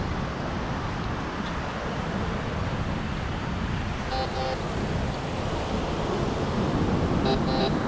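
Steady rush of beach wind and surf on the microphone. A White's MX7 metal detector gives two short beeping target tones as its coil is swept over the freshly dug hole, about four seconds in and again near the end.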